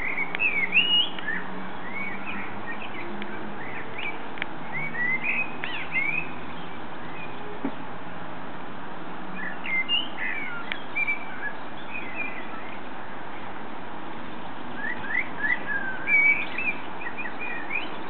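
Common blackbird singing: four runs of quick, warbling, gliding whistled notes separated by pauses of a few seconds, over a steady background hiss.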